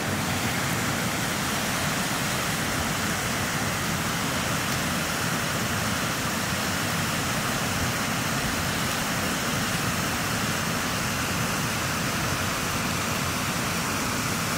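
Small creek flowing, a steady, even rush of running water.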